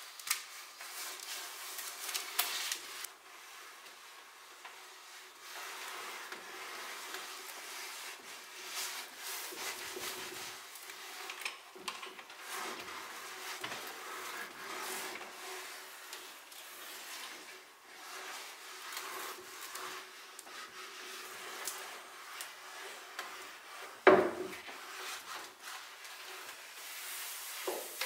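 Clothes iron sliding and rubbing back and forth over a sheet of wood veneer, pressing it onto a wooden panel, with one sharp knock about 24 seconds in.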